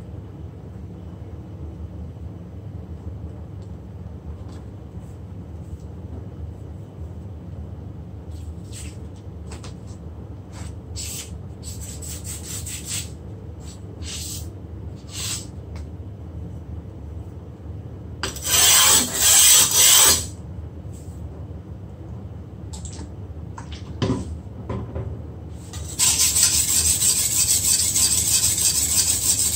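Steel cleaver blade being ground on the coarse side of a wet combination whetstone. First come scattered short scrapes, then a brief loud burst of scraping past the middle, and from a few seconds before the end, continuous rapid back-and-forth rubbing strokes.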